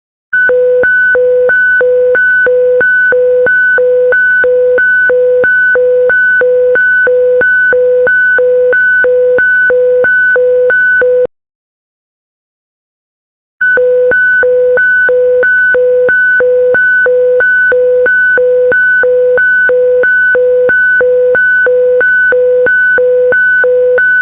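Emergency alert system alarm tone: a synthesized beep alternating evenly between a low and a high pitch, about three tones a second. It sounds in two runs of about eleven seconds, with a pause of about two seconds between them.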